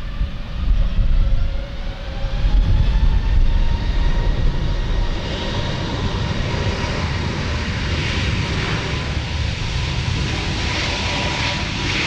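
Airbus A321neo's Pratt & Whitney PW1100G turbofans at takeoff power as the airliner accelerates down the runway: an engine whine rising in pitch over a heavy low rumble, loudest in the first few seconds, then holding steady with a constant high tone.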